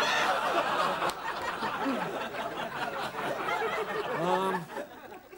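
Studio audience laughing, dying away near the end, with one short voice sound at about four seconds.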